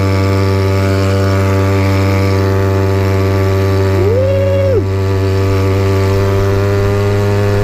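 Two-stroke Red Rhino 50cc scooter engine running under load at a steady pitch, a constant drone as the scooter pulls along.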